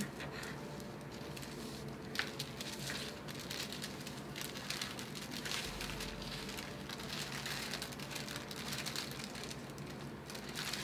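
Scissors cutting through thin paper pattern, a string of soft, irregular snips mixed with the paper rustling and crinkling as it is turned and lifted.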